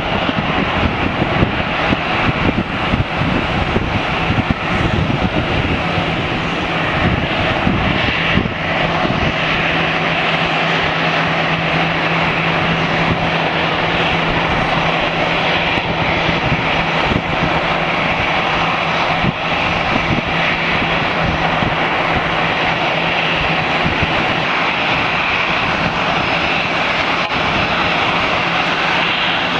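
Airbus A321 airliner's jet engines running at taxi power: a steady roar and whine. A steady low hum sets in a few seconds in.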